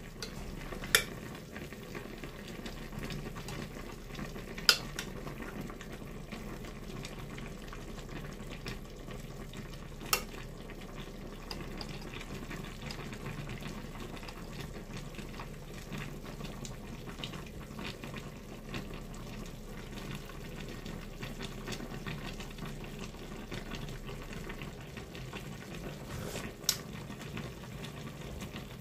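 Pot of fish stew simmering on a gas burner, a steady bubbling hiss, while a metal spoon ladles broth over the fish, clinking sharply against the pot four times.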